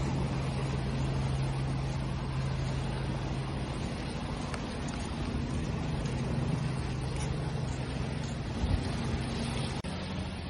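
Steady rushing wash of ocean waves, with a low, steady engine hum underneath.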